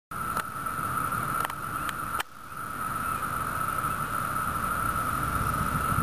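Chorus of Brood II periodical cicadas (Magicicada): a steady, high ringing drone, their mating song, over a low rumble. It starts abruptly just after the beginning and dips briefly a little over two seconds in.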